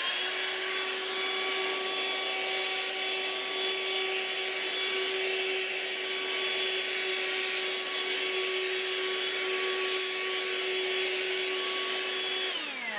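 Dirt Devil AccuCharge cordless hand vacuum running with a steady whine and a rush of air as it sucks caraway seeds off carpet. Near the end it is switched off and the motor's whine falls in pitch as it winds down.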